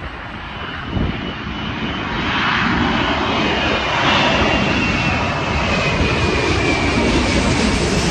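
Airbus A380-861 jet on final approach with its four Engine Alliance GP7200 turbofans running at approach power, growing steadily louder as it comes low overhead. A high engine whine over the deep roar slides slightly down in pitch as the aircraft closes in.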